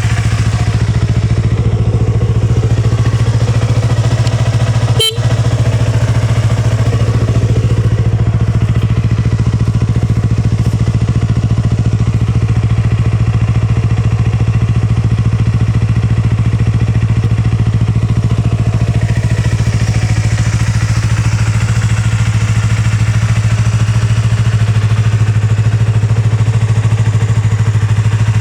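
Yamaha YZF-R25's 249 cc parallel-twin engine idling steadily through a Yoshimura Cyclone aftermarket silencer, with no revving.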